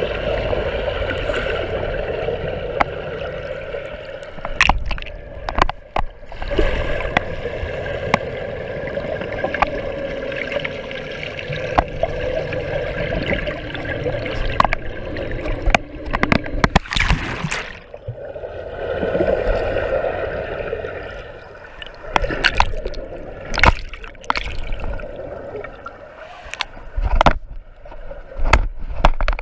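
Pool water heard underwater through a waterproof-housed action camera: muffled gurgling and sloshing with a steady droning hum, broken twice, and frequent sharp clicks and knocks.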